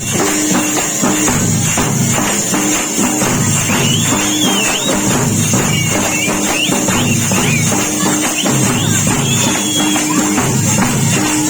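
Drums played together in a steady, rapid beat, with a constant metallic jingle over the top and a few short high gliding tones midway.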